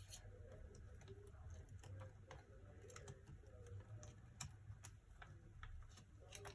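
Near silence: a low hum with faint, scattered small clicks and taps from handling small laptop parts.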